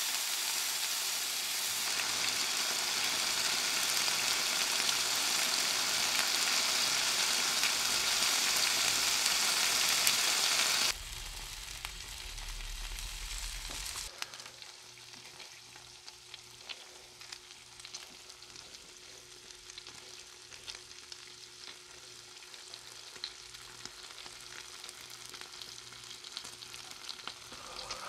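Chicken skewers sizzling as they grill, a loud steady sizzle for about the first eleven seconds, then dropping suddenly to a much quieter sizzle with light crackles.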